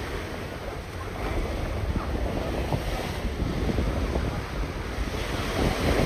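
Wind buffeting the microphone over the steady wash of ocean surf.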